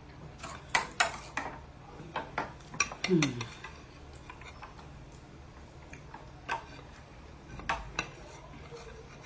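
Cutlery clinking and scraping against a plate of beans while eating: a quick run of sharp clicks in the first three seconds, then a few more about six and a half to eight seconds in.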